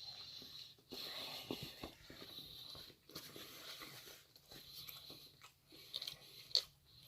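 A person chewing food close to the microphone: quiet, irregular chewing with small crunches and mouth clicks, one sharper click near the end.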